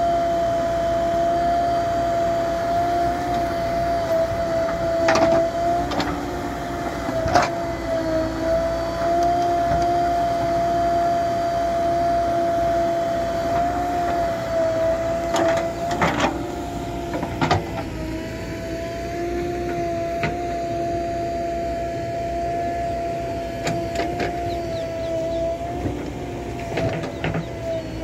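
JCB 3DX backhoe loader's diesel engine running under load with a steady whine that wavers slightly in pitch, as it digs and loads earth. Several sharp clanks and knocks from the bucket and the soil come through it.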